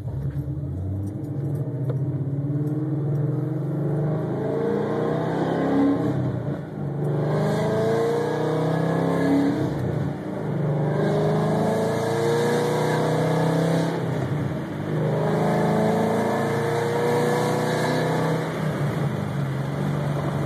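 Ford Mustang GT's 5.0-litre V8 accelerating through the gears, heard from inside the cabin. The engine note climbs in pitch in each gear and drops briefly at each upshift, with the shifts coming at about 3,750 rpm.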